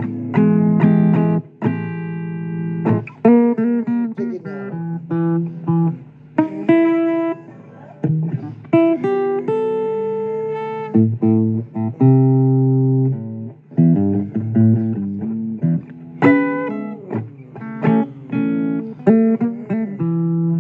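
Blues guitar playing an instrumental passage of picked notes, some bent or slid in pitch, with no singing.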